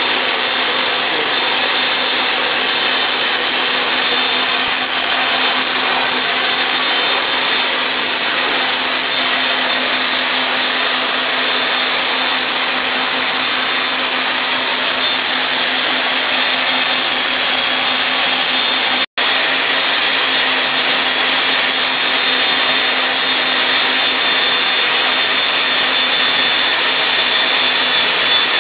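Motor-driven homemade fish-scaling drum turning in a tub of water: a steady whir and hiss over a constant hum, with a split-second dropout about two-thirds of the way through.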